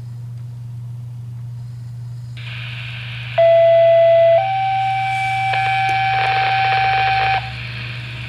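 Two-tone sequential paging tones on a fire dispatch radio channel, heard through a scanner: the channel opens with a hiss, then a lower tone of about a second steps up to a higher tone held about three seconds. This is the alert tone that sets off the fire department's pagers. A steady low hum runs underneath.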